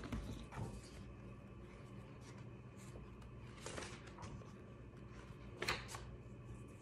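Quiet room with a low steady hum and a few brief soft rustles of paper sheets being handled. The two clearest come in the second half, about two seconds apart.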